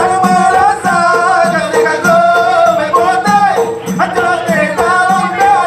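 Acehnese seated group dance: a row of women singing in unison on long held notes, with sharp rhythmic claps marking a steady beat.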